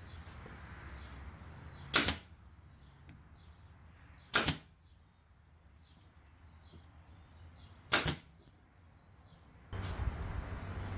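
Pneumatic fastening gun on an air hose firing three times, about 2, 4.5 and 8 seconds in: each shot a sharp snap of air as it drives a fastener into a plywood patch.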